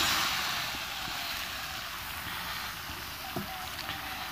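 Hot chicken curry sizzling as a bowlful of cut bottle gourd is tipped into the pot. The hiss is loudest at the start and eases over the first couple of seconds to a steady lower sizzle.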